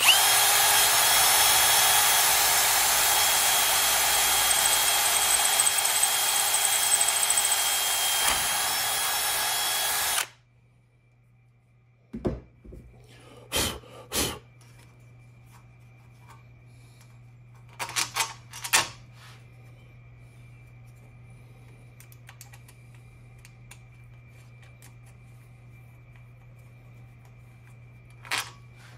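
Handheld power drill with a twist bit drilling a hole through an aluminum angle support rail. It runs steadily with a whine for about ten seconds, then stops suddenly. A few short clicks and knocks follow as the plastic drag chain links are handled.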